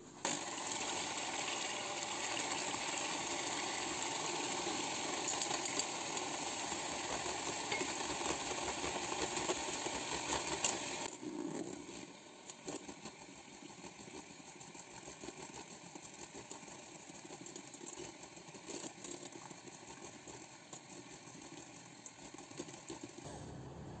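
Electric hand mixer whisking egg whites in a stainless steel bowl, beating them into meringue. Steady whirring and beater noise, louder for the first ten seconds or so and then quieter.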